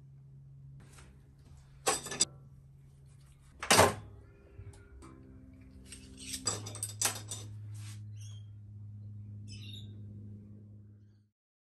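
Metal clanks and knocks of hand tools working at the blade mount of an old lawn edger as its blades are being taken off, the loudest a sharp knock about four seconds in and a quick run of clicks a little later. A steady low hum sits underneath, and it all cuts off abruptly near the end.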